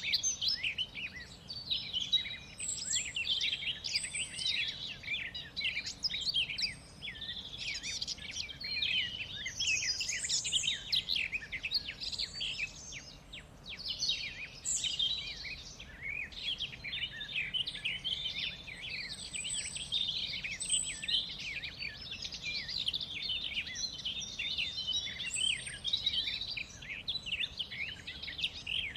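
A chorus of many birds chirping and singing at once, with dense, overlapping quick high calls and trills that never pause.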